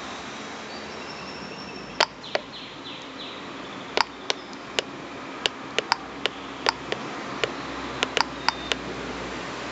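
Push buttons on a Clone PI AVR metal detector's control box clicking as they are pressed to step through its menu: about sixteen short sharp clicks at irregular intervals, starting about two seconds in, over a steady hiss.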